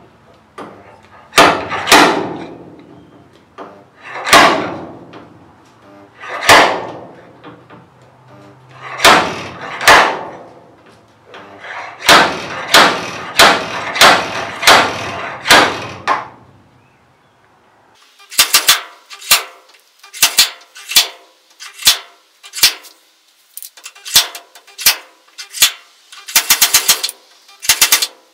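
Spot-weld dent puller with a slide hammer working a creased steel car sill: a run of sharp metallic hits, each ringing out briefly, one to two seconds apart and coming faster in the middle. From about two-thirds of the way in, quick clusters of rattling clicks several times a second.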